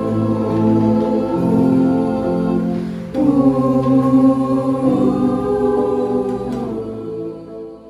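A small choir singing sustained harmonised chords without words. The chord changes about three seconds in and again about five seconds in, then the voices fade away near the end.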